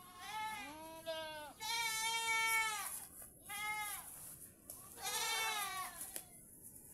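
Goats bleating: four long, wavering calls, two of them overlapping at the start, the loudest about two seconds in.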